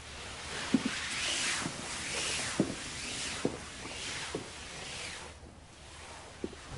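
A woman's footsteps across a floor, about one step a second, each with the swish of her long heavy skirts. The steps stop about five seconds in, and one more soft thump comes near the end.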